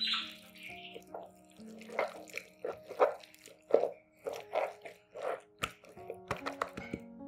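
Soft background music with held tones, over an irregular string of short wet clicks and plops from food being prepared by hand.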